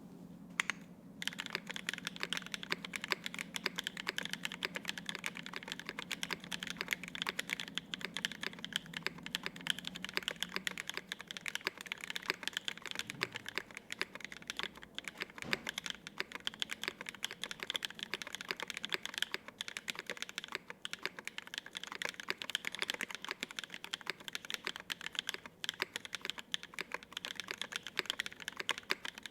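Fast, continuous typing on a custom gasket-mount 75% mechanical keyboard with lubed Konpeitou linear switches on an aluminum plate and GMK double-shot ABS keycaps. The key strokes come in a dense, unbroken stream that starts about a second in.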